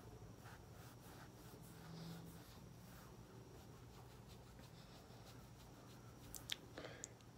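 Near silence, with faint soft strokes of a makeup brush sweeping highlighter along the jaw and a couple of small clicks near the end.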